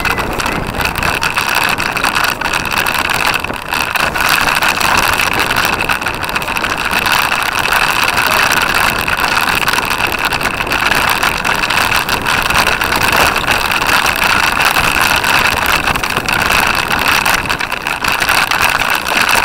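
Steady, loud rushing and rattling from a camera mounted on a cyclocross bike as it is ridden over rough grass: wind on the microphone mixed with the bike and mount shaking over the bumpy ground.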